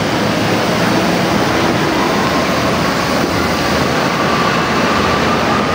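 Steady, loud background din with no distinct events standing out.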